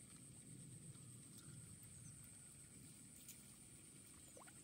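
Near silence: faint outdoor ambience with a steady low rumble, a thin steady high tone and a few faint clicks.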